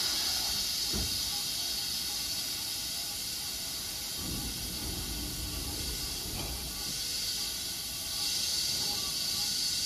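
Steady high hiss from a Chiba New Town Railway 9100 series electric train standing at the platform with its onboard equipment running, growing a little louder about eight seconds in.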